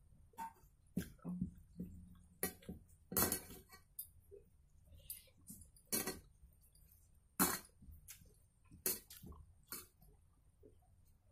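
Eating by hand from a stainless steel plate: scattered clinks and taps against the steel, with chewing sounds. About a dozen sharp clicks come unevenly through it, several of them louder than the rest.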